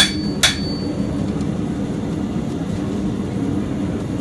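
Two blacksmith's hammer blows on steel about half a second apart, the first ringing briefly with a high tone, then a steady low hum.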